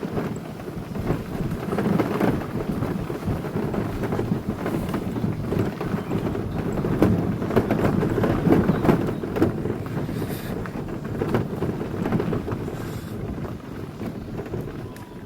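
Steady rumbling with irregular crunching of gravel underfoot or under wheels, moving along a gravel forest path, with wind buffeting the microphone.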